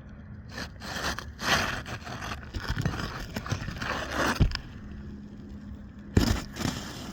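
Asphalt three-tab shingles being scraped and worked loose by hand, a series of rough scraping strokes followed by two dull knocks, one at about four and a half seconds and one near the end.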